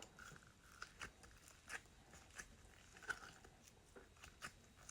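Faint small pops and clicks of slime being squished and pressed by hand, about one every half second to second.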